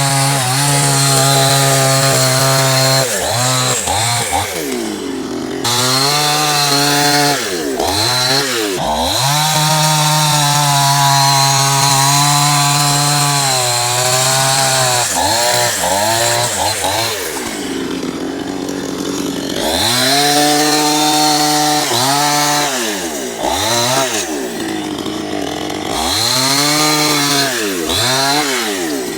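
Two-stroke chainsaw running at high revs while cutting wood. Its pitch sags and climbs back again and again as the chain loads up in the cut and the throttle is eased and reopened, with a long steady high-rev stretch in between.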